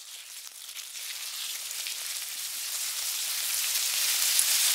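A crackling hiss sound effect for the logo animation, growing steadily louder.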